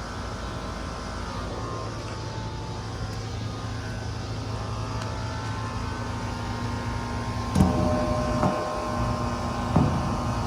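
Outdoor condensing units running: a steady hum of compressor and fan with a few steady tones on top. A couple of short knocks come near the end.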